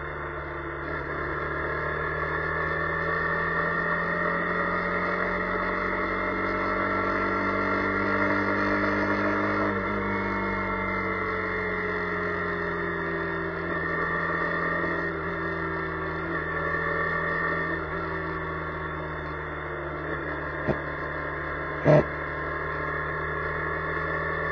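Car engine and drivetrain hum heard from inside a moving car, its pitch rising slowly as the car speeds up and then falling as it slows. A short sharp knock stands out near the end.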